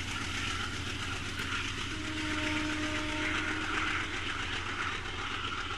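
Train running along rails, a steady rumble and rail noise.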